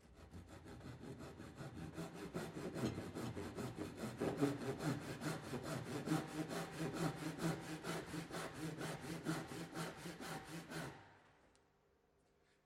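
Fine-toothed hand saw cutting along the joint line between a dovetailed replacement piece and the existing timber, with rapid, even strokes; the kerf trims the joint to close minor gaps. The sawing stops near the end.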